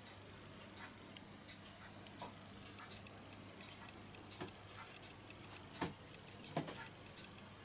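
Faint, irregular ticks and clicks from a Bassett-Lowke toy steam donkey engine, over a steady low hum.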